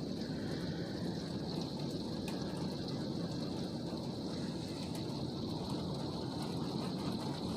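Heavy rain pouring down steadily, a dense patter of drops.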